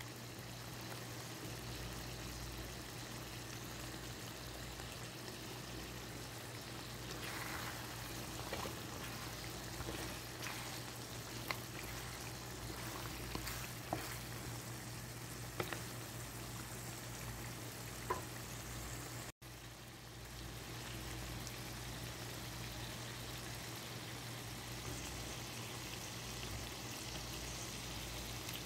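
Thick mutton curry simmering in a pot: steady bubbling and sizzling with scattered sharp pops through the middle, over a low steady hum. The sound breaks off for an instant about two-thirds through.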